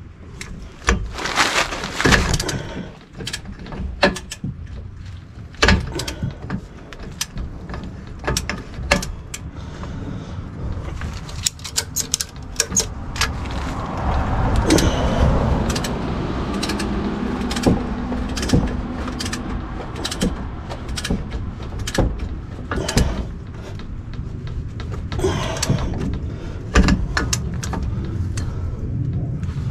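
Metal tools and parts clicking and clanking irregularly while the rear wheel hub nut of a GMC Sierra 3500 dually is worked down onto new wheel bearings. About halfway through, a steadier scraping, rolling sound sets in under the clicks.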